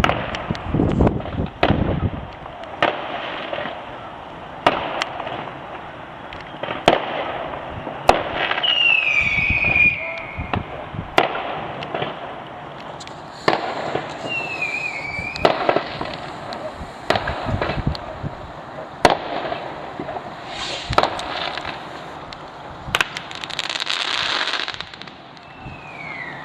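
Fireworks going off all around: many sharp bangs, one every second or so, with a few short whistles falling in pitch and a crackling burst near the end.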